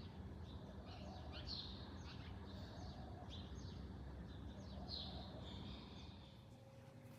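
Small birds chirping in short, repeated calls over a steady low background hum.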